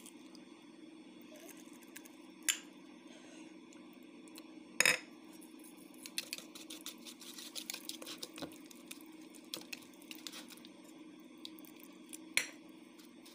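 Wire whisk stirring pancake batter in a plastic mixing bowl, its wires clicking and scraping against the bowl in quick irregular strokes, with a few separate sharper knocks against the bowl.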